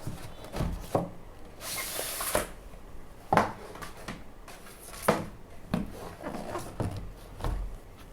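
A cardboard product box being handled and opened by hand: a string of knocks and taps, with a short scraping rustle about two seconds in as the packaging slides or rubs.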